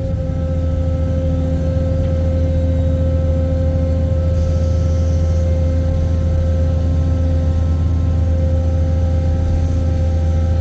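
Ship excavator's engine running steadily under a constant low drone, with an even whine held at one pitch above it.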